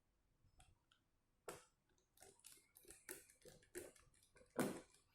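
A run of short, sharp plastic clicks, irregular, two or three a second, starting about one and a half seconds in. It is a tablet's plastic back cover snapping onto its frame as it is pressed into place.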